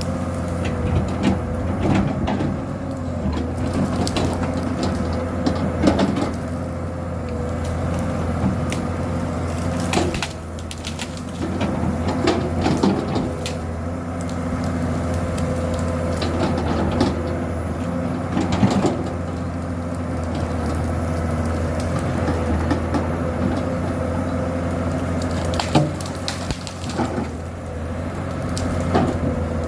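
Komatsu PC200-7 excavator's six-cylinder diesel engine running steadily under load while it clears brush and small trees. Repeated sharp cracks and splintering of breaking wood come over the engine's hum.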